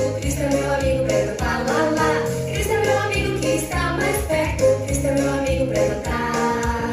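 Upbeat children's song playing: singing over a steady bass line and backing band.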